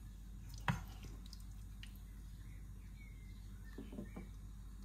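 Quiet kitchen handling: a sharp knock about a second in, then a couple of soft taps near the end as a spoon lays sauced meatballs onto rice in a glass dish. Faint bird chirps in the background.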